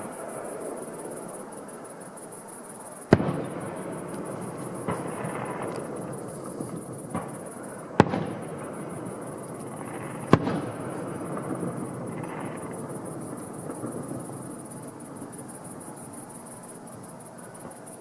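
Fireworks display: shells bursting with sharp bangs, the loudest about three seconds in and others about eight and ten seconds in, with crackling between the bursts. Crickets chirp steadily underneath.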